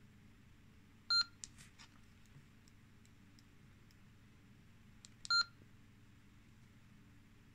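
Two short electronic key beeps from a two-way radio, about a second in and again about four seconds later, with faint button clicks between them, as the radio's keys and controls are worked. A steady low hum sits underneath.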